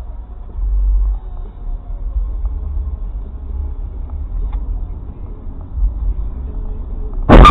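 Steady low road rumble inside a Jeep Grand Cherokee in slow highway traffic, then near the end one sudden loud crash as a Chevrolet sedan rear-ends it, striking the rear bumper and exhaust.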